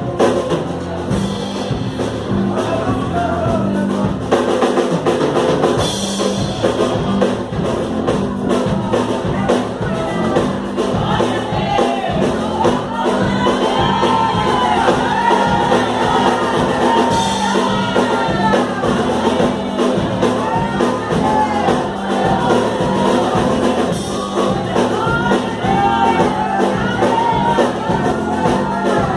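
Percussion group drumming a steady beat, with voices singing along.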